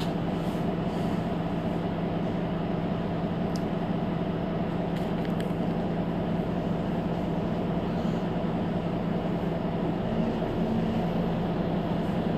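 Mercedes-Benz Citaro C2 Hybrid city bus running: a steady low drone with a few held tones, one tone shifting slightly near the end.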